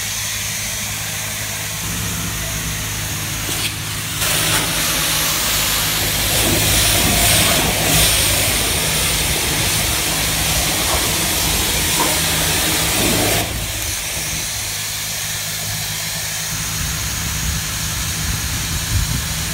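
High-pressure car wash wand spraying water against a pickup truck, a steady hiss of spray over a constant low hum. The spray grows louder about four seconds in and drops back about thirteen seconds in.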